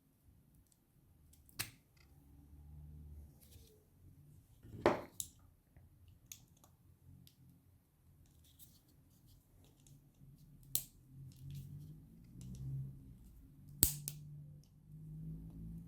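Scattered sharp clicks and snaps of hand tools working on a cordless drill battery pack, the loudest about five seconds in and another sharp one near the end, over a faint low hum.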